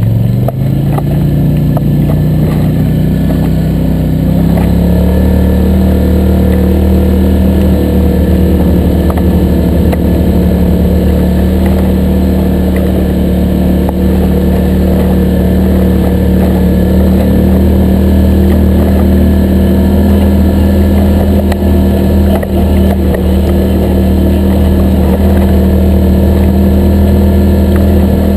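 ATV engine running steadily while riding a trail, its note rising over the first few seconds and then holding level.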